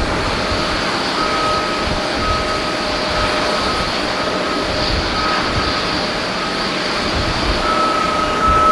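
Airbus A340-300's four CFM56 jet engines in a steady roar during takeoff, with a thin high whine coming and going over it.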